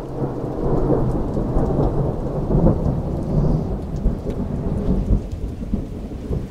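Thunder rumbling and rolling for several seconds over steady rain, swelling in the first second, loudest around the middle, then cutting off suddenly at the end.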